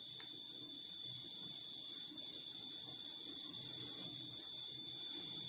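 Alert buzzer on an Arduino GPS/GSM tracking board sounding one continuous, loud, high-pitched tone: the panic-button emergency alarm, going while the board sends the emergency SMS.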